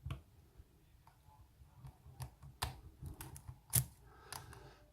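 Lock pick and tension tool working the pins of an aluminium-bodied American Lock 1205 padlock: scattered small metallic clicks and taps at irregular intervals, the loudest a little under four seconds in.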